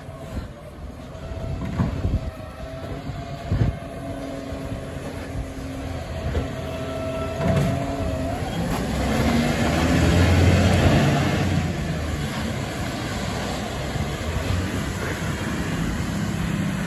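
Side-loading garbage truck collecting recycling. Its hydraulic lift arm whines steadily while raising and emptying a wheelie bin, with a sharp knock twice as the bin is tipped and shaken out. About eight seconds in, the diesel engine revs up as the truck pulls away.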